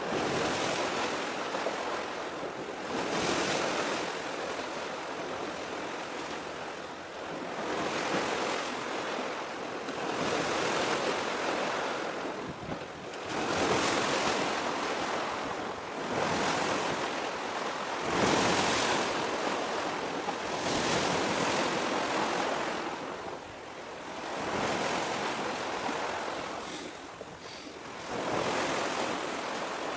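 Sea waves washing in, swelling and fading every few seconds, with wind buffeting the microphone.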